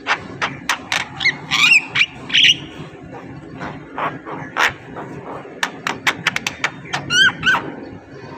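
Javan myna calling: a quick run of sharp clicks and chatter, broken by a few squeaky whistled notes that bend in pitch, about two seconds in and again near the end.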